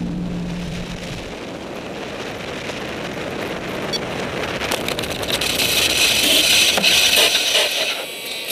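Wind rushing over the microphone of a camera on a model glider flying low over the beach, a noisy rush that grows louder in the second half, with scattered ticks.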